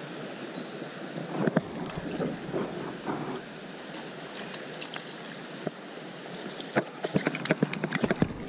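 Creek water running steadily, with scattered short clicks and knocks that come thick and fast in the last second and a half.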